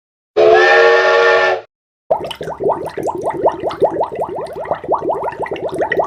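Cartoon sound effects: a short whistle blast of several steady tones at once, lasting about a second. After a brief gap, a fast, even run of short rising chirps, about six a second, begins.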